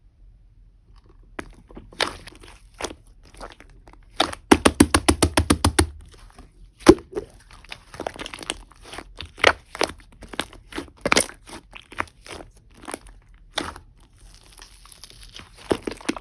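Clay-mixed slime being kneaded and pressed by hand, giving irregular sharp clicks and crackling pops, with a quick run of rapid, evenly spaced clicks about four seconds in.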